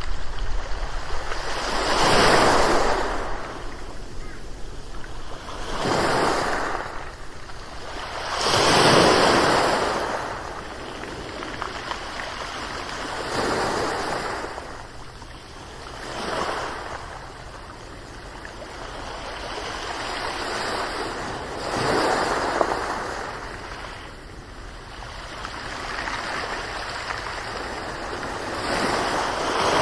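Ocean surf: waves breaking and washing in, each one swelling up and falling away, about seven surges a few seconds apart over a steady low rumble.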